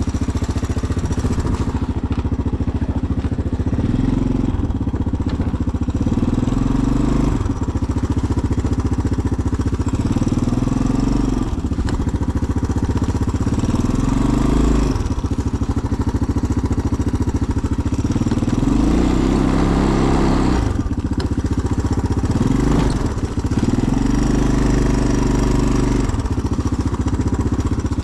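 Honda Big Red utility vehicle engine running under load, its pitch rising and falling every two or three seconds as it is revved and eased off repeatedly while being driven through snow.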